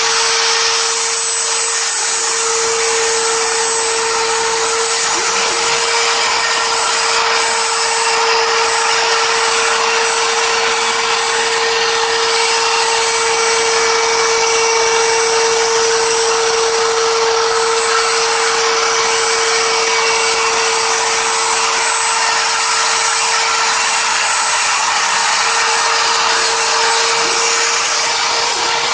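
CNC router spindle running at a steady speed while engraving a table top: a constant whine over a dense hiss, with no change in level.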